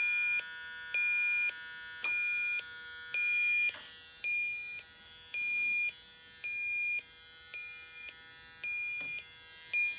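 Electronic refrigerant leak detector beeping, a high tone about once a second, about ten beeps. It is picking up refrigerant fumes at the heat pump's indoor unit, the sign of a leaking indoor coil.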